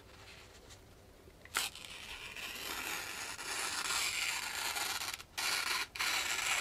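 Freshly Scandi-sharpened Mora Companion knife slicing through a sheet of printer paper, the sharpness test of the new edge. After a light tick about a second and a half in, the edge makes a steady scratchy hiss as it cuts, with two brief breaks near the end.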